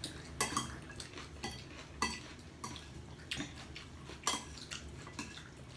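Cutlery clinking and scraping against plates while eating, with a dozen or so light, irregular clinks, some ringing briefly.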